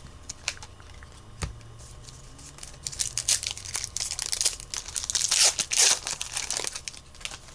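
Trading card pack wrapper being torn open and crinkled: a few light clicks of cards being handled, then tearing and crinkling from about three seconds in, loudest near the six-second mark.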